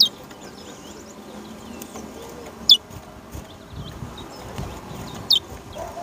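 Towa towa (chestnut-bellied seed finch) singing: three loud, short, high notes sweeping downward, about two and a half seconds apart, over faint steady twittering.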